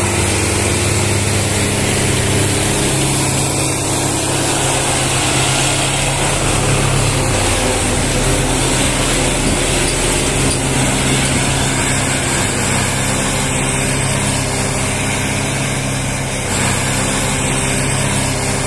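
Tractor diesel engines running steadily under load while hauling heavily laden trolleys along a muddy track. The engine note changes abruptly about seven seconds in and again near the end.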